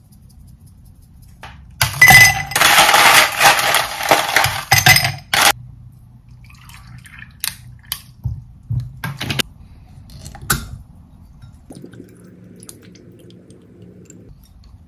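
Ice cubes clattering into drinking glasses, a loud burst of about three and a half seconds, followed by scattered clinks of ice as water is poured into a glass of ice to make iced tea. Near the end, mango juice poured from a bottle into a glass.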